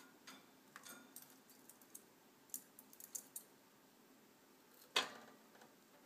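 Faint scattered clicks and taps from a budgie moving around its cage, its beak and feet on perches, wire and paper, with one louder sharp knock about five seconds in.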